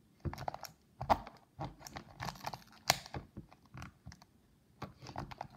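Irregular sharp clicks and cracks of hard plastic as a Dino Gold toy dinosaur's stiff shell is wrenched and pried open by hand.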